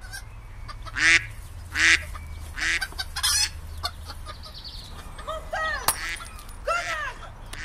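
Loud duck quacks and honks: four short calls about a second apart in the first few seconds. Near the end a voice shouts "Menteur!"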